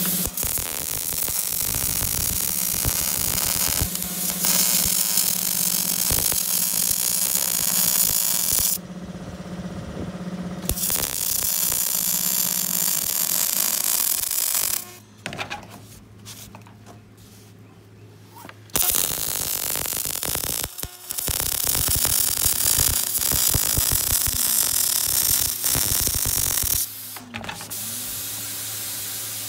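Semi-automatic MIG welder crackling and hissing as a weld is run along a steel truck-bed floor plate, laid in runs of several seconds with pauses, the longest about halfway through. The seam is welded in short stitches rather than one continuous bead so that the thin plate does not warp from the heat.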